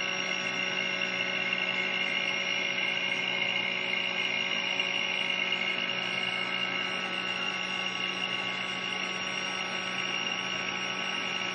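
CNC mill's router spindle motor running steadily while engraving a PCB with a 0.8 mm bit, a constant hum with a high whine over it.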